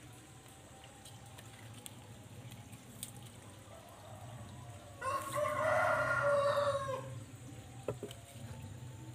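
A rooster crowing once, about five seconds in, a single call lasting about two seconds.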